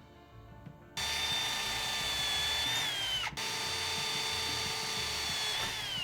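Electric drill running in two long bursts with a high whine; each time the pitch sags as it slows before stopping.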